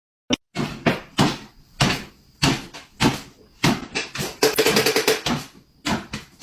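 A series of sharp knocks or thuds, roughly one to two a second, each dying away quickly.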